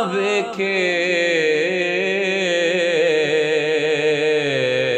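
A male voice sings Punjabi Sufi kalam, drawing one word out into a long, ornamented held note that wavers in pitch and steps lower near the end.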